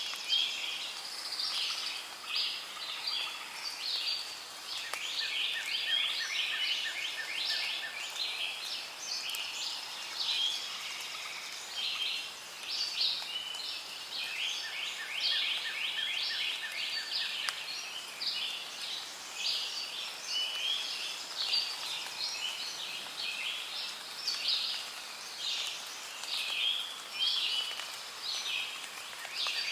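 Rainforest ambience: a dense, continuous chorus of high chirping calls. A rapid ticking trill joins in and drops out several times.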